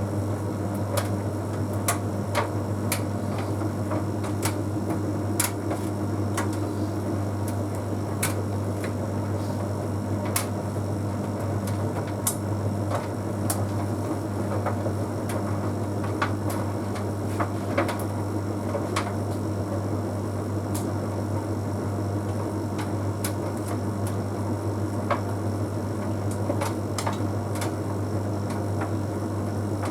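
Bosch Series 6 heat pump tumble dryer running an Easy Care cycle: a steady low hum with light, irregular clicks and ticks several times a second as the drum turns.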